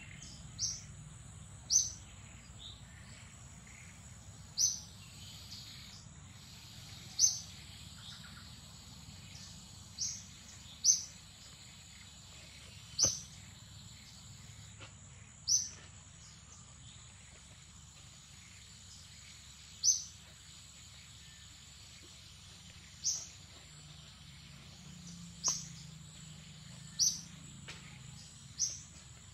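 A bird giving a short, sharp high chirp over and over, about a dozen times at uneven gaps of one to four seconds, over a steady high insect whine.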